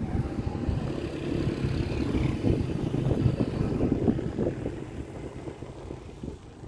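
Wind buffeting the phone's microphone, with a vehicle's engine going by on the road. The rumble is loudest around the middle and fades toward the end.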